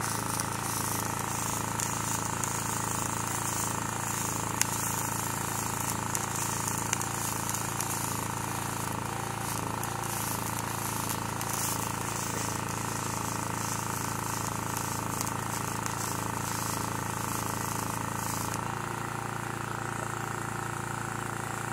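Arc welding on steel fence pipe: the arc's steady crackling hiss over the even drone of an engine running. The arc stops a few seconds before the end while the engine runs on.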